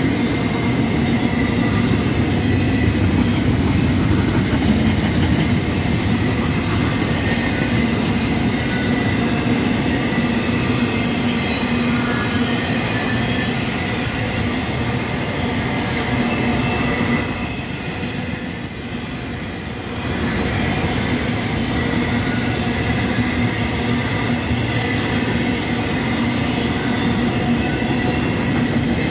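Intermodal freight train's cars rolling past at speed: a steady rumble of wheels on rail with a thin high squeal from the wheels over it, briefly quieter about two-thirds of the way through.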